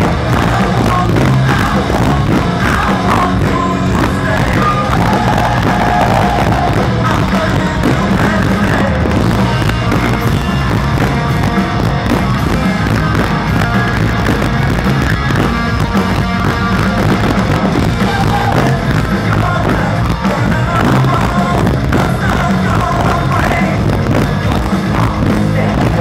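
Rock band playing loud and steady live: drums, bass and electric guitar, with a lead singer's vocals.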